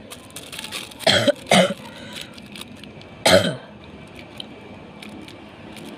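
A man coughing to clear his throat: two quick coughs about a second in, then one more a couple of seconds later.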